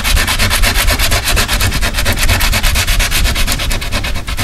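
Coarse sandpaper rubbed back and forth by hand on a steel door in rapid, even strokes, scraping the paint off down to bare metal.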